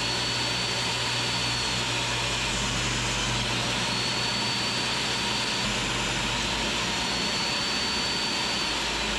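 Table saw running steadily as a series of narrow boards is fed through it, a shallow rip pass along each edge to cut a groove. A faint higher tone comes in three times for about two seconds, one per board.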